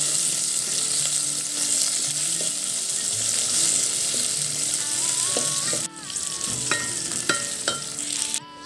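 Sliced red onions sizzling in hot oil in a metal pot, stirred with a wooden spatula that scrapes the pot bottom now and then. A faint melody comes in about halfway.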